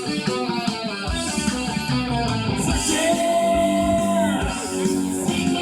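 Rock music with fast electric guitar notes, bass and drums, including a long held guitar note in the middle.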